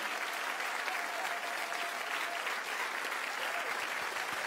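Audience applauding: steady, dense clapping from a full house, with a few faint voices in it.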